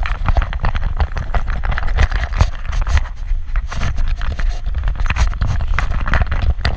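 Body-mounted GoPro on a trotting small dog, a Schnoodle: dense knocking and rustling from its harness, leash clip and tags jostling with each quick step, and heavy thumps of the camera against its back.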